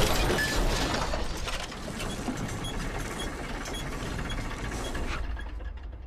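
A ramshackle old car rattling and clattering as it runs, a dense rapid ticking that fades out about five seconds in.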